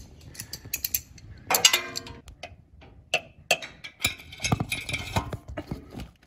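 Irregular metallic clicks, clinks and knocks of hand tools working a rounded-off exhaust header bolt, with brief metallic ringing.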